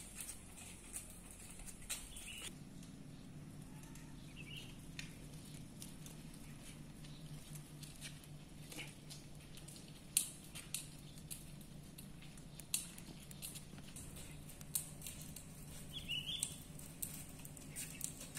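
Quiet outdoor ambience with people walking on a paved path: scattered light taps of footsteps, a low steady hum from a few seconds in, and a couple of short bird chirps.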